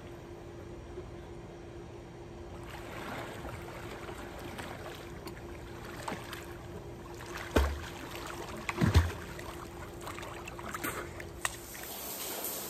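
Swimming-pool water lapping and splashing as a swimmer moves underwater, over a steady faint hum, with two loud bumps a little past halfway. Near the end, shower spray takes over.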